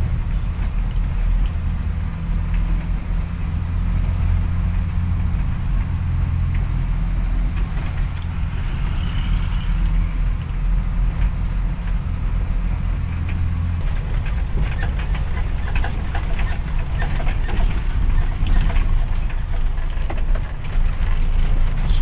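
Dump truck's diesel engine running under way, heard from inside the cab as a steady low hum, with the cab rattling. About two-thirds of the way through the hum's steady note changes and the knocks and rattles get busier.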